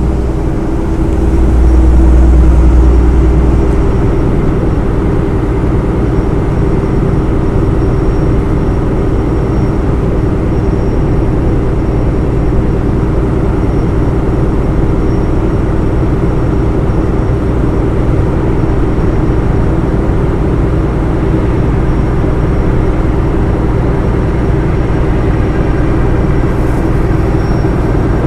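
Steady hum and rumble of a ferry's engines and on-board machinery, heard on the open upper deck. Wind gusts on the microphone add a louder low rumble during the first few seconds.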